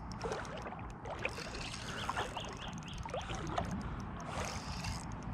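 Shallow water sloshing and swirling around an angler's legs as he wades while fighting a fish, with small scattered clicks and a brief run of short high chirps about two seconds in.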